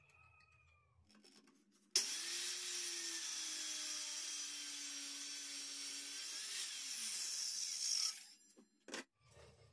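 DERA circular saw starting suddenly about two seconds in and cutting through a wooden board for about six seconds, its motor tone sinking slightly under the load, then dying away. A short knock follows near the end.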